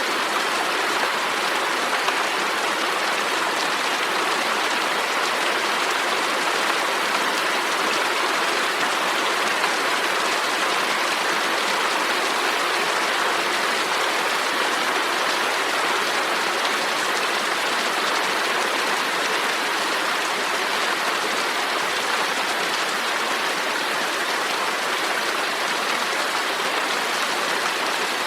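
Steady rain falling, an even hiss of drops with no change in intensity.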